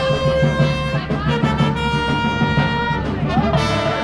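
A brass marching band playing a tune, with trumpets, trombones and saxophones holding notes that change about once a second.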